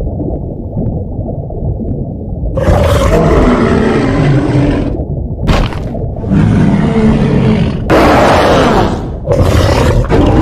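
Custom giant-monster roar sound effect, layered from animal-like roars: a low muffled rumble, then four loud roars in quick succession, with a short sharp crack between the first and second.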